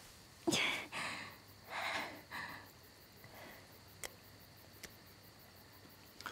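A few short, sharp breathy gasps and sniffs of pain in the first two and a half seconds, then a few faint clicks.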